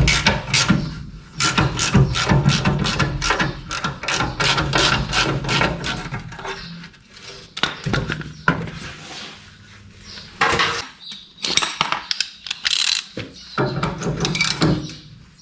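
Hand tools working on the fuel tank's mounting bolts under a vehicle, metal on metal: a quick run of clicks and knocks for about the first seven seconds, then scattered clanks.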